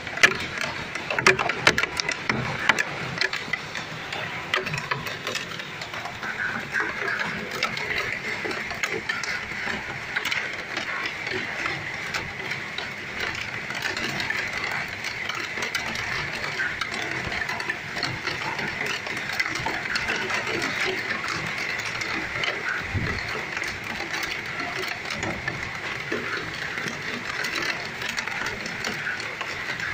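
Heavy rain falling in a steady, dense patter of drops, with a few sharper, louder drop hits near the start.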